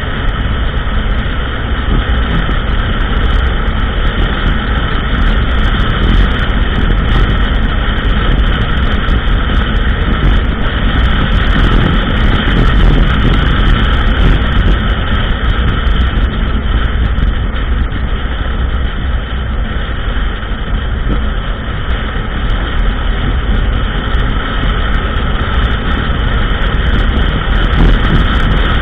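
ATV engine running steadily as the quad rides along a trail, with a constant low rumble and scattered small clicks and rattles.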